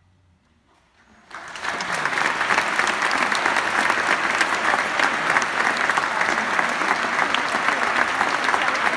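Concert audience applauding after a short silence at the end of a choral piece: clapping breaks out suddenly just over a second in and continues steadily and loudly.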